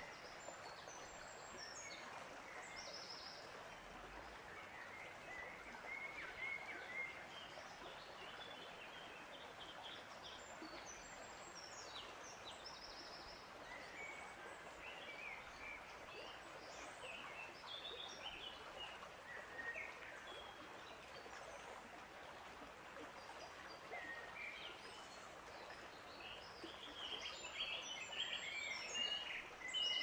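Faint outdoor nature ambience: small birds chirping and calling on and off over a steady background hiss, with the calls busier near the end.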